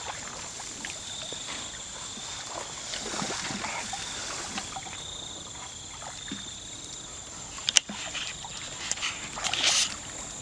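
Wading and sloshing through shallow, muddy paddy water, with a steady, high-pitched insect drone behind it. A single sharp knock comes about three-quarters of the way through, followed by splashing near the end.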